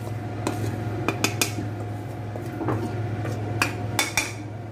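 Metal spoon scraping and tapping against a stainless steel bowl as flour is pushed out of it: a series of separate clinks and knocks.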